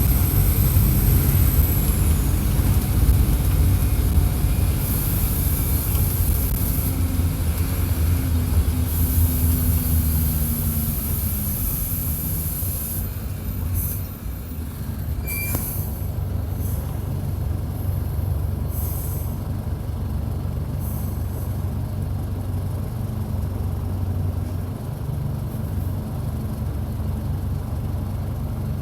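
Mercedes-Benz OF-1722 bus's six-cylinder turbo diesel engine heard close up, its revs falling steadily over several seconds as the bus slows, then running lower and steadier. Short hisses and one brief high squeal come partway through.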